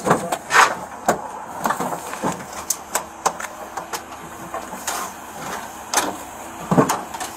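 Scattered clicks, knocks and rustling of handling, picked up by a body-worn camera's microphone.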